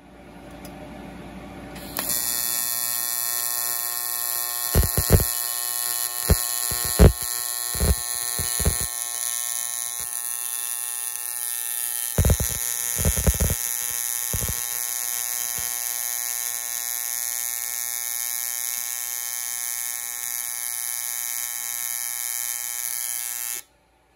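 AC TIG welding arc on aluminum exhaust tubing: a steady electric buzz that starts about two seconds in, with two clusters of sharp crackles and pops, and cuts off suddenly near the end as the arc is broken.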